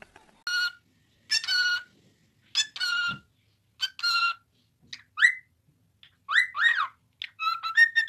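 Pet parrots calling: four short, buzzy chirps about a second apart, then a cockatiel whistling rising and falling notes that break into a quick whistled tune near the end.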